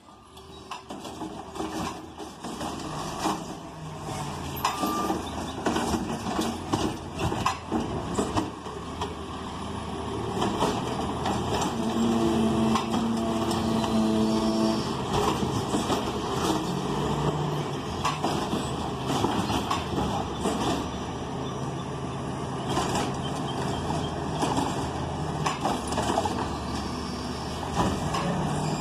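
Crane Carrier (CCC) automated side-loader garbage truck working at the curb: its engine and hydraulics run steadily while the side arm grabs, lifts and dumps carts, with repeated clanks and knocks throughout.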